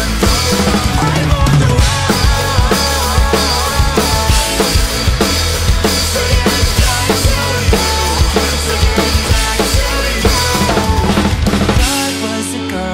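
Full drum kit played hard with Soultone cymbals, in fast kick and snare strokes and cymbal crashes, over the song's recorded backing music. About twelve seconds in, the drums stop and the backing music carries on more softly.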